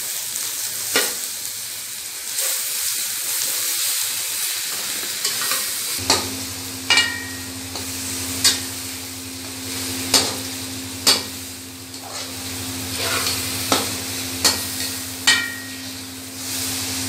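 Ash-gourd halwa sizzling in a steel karahi while a steel spatula stirs and scrapes it, with sharp clinks of the spatula against the pan about a dozen times. The sugar has just gone in and is cooking down. A steady low hum comes in about six seconds in.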